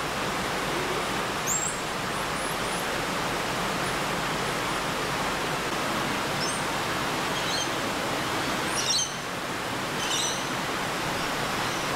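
Steady rushing background noise, with a few short, very high-pitched chirps about a second and a half in and again several times between six and ten seconds in.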